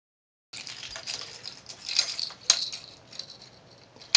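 Light metallic clinking and rattling starting about half a second in, with a sharp click about two and a half seconds in.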